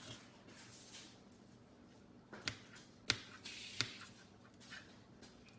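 Kitchen knife chopping a plum on a plastic cutting board: a few sharp clicks as the blade strikes the board, the loudest about halfway through, with softer cuts between.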